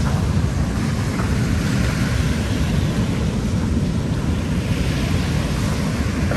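Ocean surf washing onto the beach in slow swells, with wind rumbling on the microphone.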